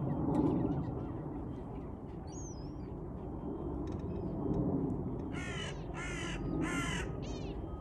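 A large bird giving three harsh calls in quick succession, each about half a second long, then a shorter call, over a steady low rumble.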